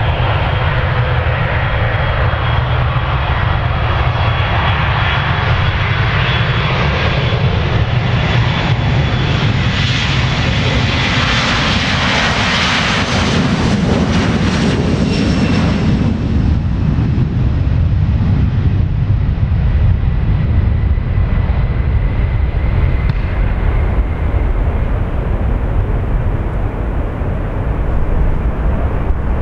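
Boeing 737-400's CFM56 turbofan engines at takeoff thrust during the takeoff roll and climb-out: a deep rumble with a high fan whine that builds as the jet approaches, is loudest as it passes about half way through, then slides slightly lower in pitch and fades, leaving the low rumble as it climbs away.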